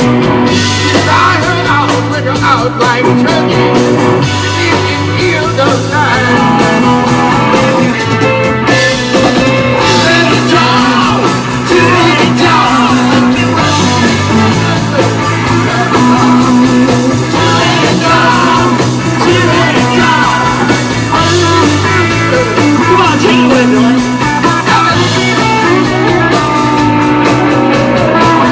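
Live rock band playing loudly, with electric guitars and bass guitar, and a male lead vocalist singing over it.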